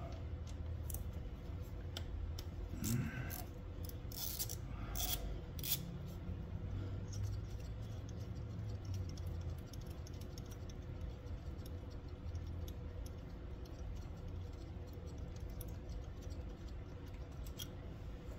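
A few light clicks and clinks of small engine parts and screws being handled during the first several seconds, then only a steady low background hum.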